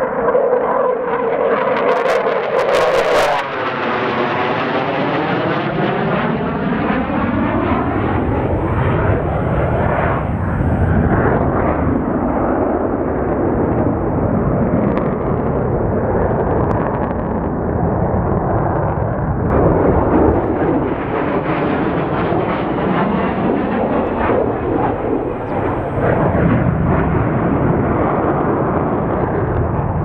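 Twin General Electric J79 turbojets of an F-4EJ Phantom II roaring as the jet flies overhead. A steady high howl in the first few seconds gives way to a sweeping, phasing roar that swells again about two-thirds of the way through.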